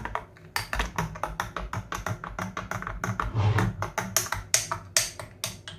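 A spoon stirring a drink in a glass cup, clinking against the glass in rapid repeated ticks, several a second.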